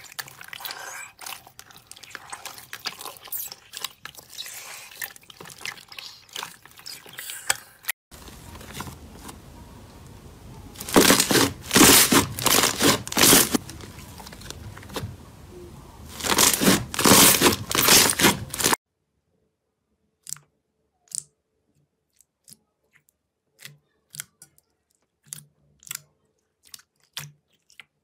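Slime being handled, in three short clips: first wet, crackly sloshing of hands stirring jelly cubes in water. Then slime pressed and folded, with two spells of loud, dense crackling. Finally a hand pushing into a bowl of soft slime, with only sparse short squishy pops.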